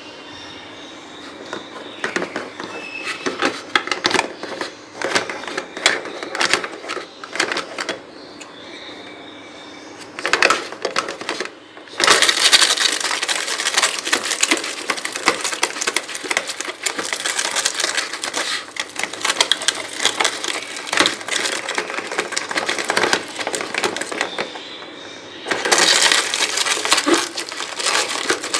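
Dry, crunchy bird food such as rusk clicking and crunching in quick, irregular taps. The taps are sparse at first and turn dense and continuous about twelve seconds in, with a brief lull shortly before the end.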